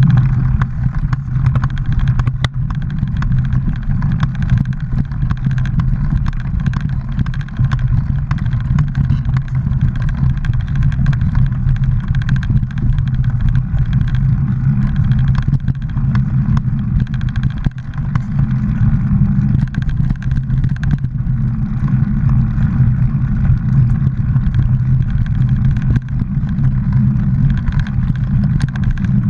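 Mountain bike riding along a leaf-covered dirt trail, recorded on a GoPro action camera: a steady low hum with constant small rattles and clicks.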